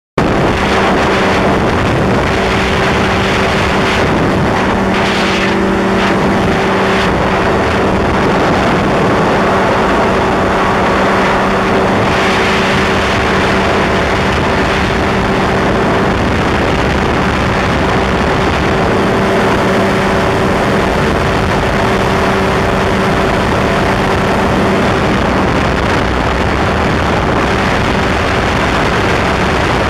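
Powered parachute's engine and propeller running steadily in flight, a loud, close drone that holds one unchanging pitch.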